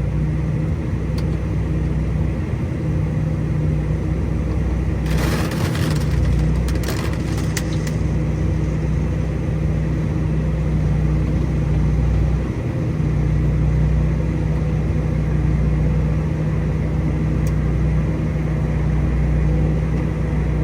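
Diesel engine of a harvest-field vehicle running steadily under load, a constant low drone, with a short burst of rattling noise about five seconds in.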